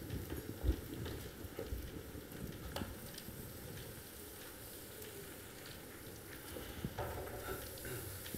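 Liquid nitrogen boiling with a faint, steady sizzle as a coffee foam is frozen in it, with a few light clicks of utensils against the container.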